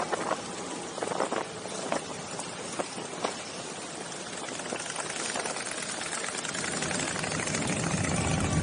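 Motorcycle engines running at low speed, with a few short clicks in the first few seconds. The engine sound grows louder near the end.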